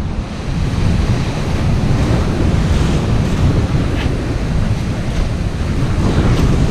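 Strong wind buffeting the microphone over the steady wash of rough, choppy sea breaking on the shore.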